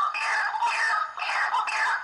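Birds calling in a rapid, busy chorus of short, overlapping notes that fall in pitch, several a second.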